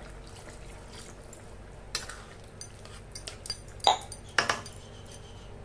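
Steel spoon stirring a watery curry in a metal kadhai, clinking and scraping against the pan. The clinks come in the second half, with the two loudest close together near the end.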